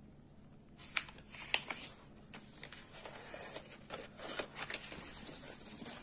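A sheet of paper being folded and creased by hand: irregular crackles and rustles that start about a second in.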